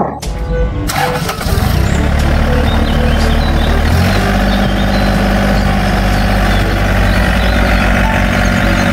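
Tractor engine starting and then running steadily at idle, a sound effect played for a toy tractor. It catches about a second and a half in and runs on with a steady low note.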